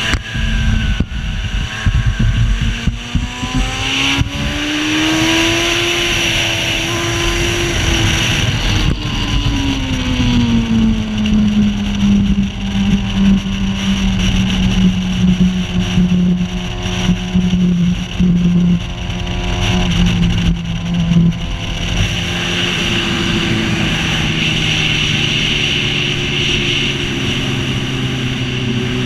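Racing sidecar outfit's engine heard from on board under way, its pitch rising over the first several seconds, then falling to a lower steady note through the middle, and easing off again near the end, with a constant rush of wind on the microphone.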